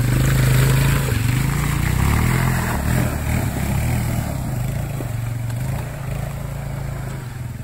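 Quad (ATV) engine revving as it is ridden through mud, its pitch rising and falling. Loudest at first, growing fainter toward the end.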